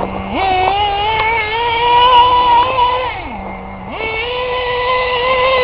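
Team Associated RC10GT's .15 nitro engine revving up sharply from idle and held at a high, slightly rising whine for about three seconds. It drops back to idle for a moment, then revs up hard again.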